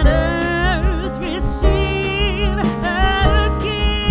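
Background music: a song with a wavering sung melody over sustained instrument notes and a heavy bass.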